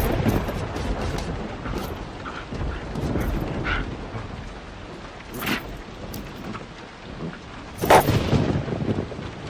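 Cartoon sound effects around a robot vacuum cleaner: a low rumbling noise fades over the first few seconds, a few short sharp sounds follow, and a louder whoosh comes about eight seconds in as the vacuum sweeps close past.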